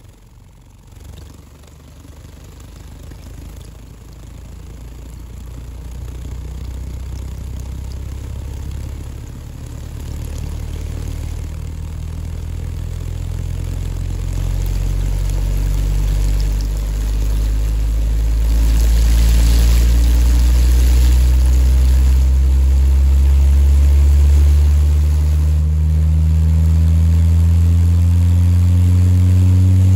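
Aiwa 5.25-inch woofer in a small cardboard box playing a deep bass tone that slowly rises in pitch and grows steadily louder.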